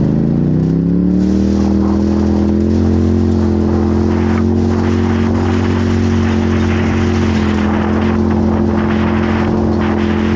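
Off-road race vehicle's engine running under hard throttle. Its revs climb over the first few seconds, then hold steady and high. A constant rushing noise runs along with it.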